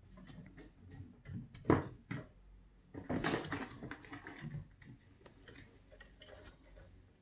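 A kitten's claws clicking and scratching on a corrugated cardboard scratcher: a run of irregular clicks, with a sharp knock a little under two seconds in and a denser rasping scratch about three seconds in.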